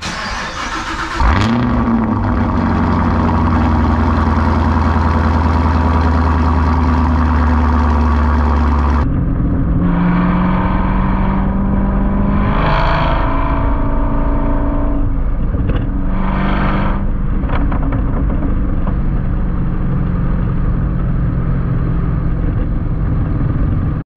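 Chevrolet Camaro ZL1 1LE's supercharged LT4 V8 starting about a second in, its pitch flaring up and then settling into a steady idle. After a cut near the middle it runs at a steady low speed, with a few brief rushes of noise.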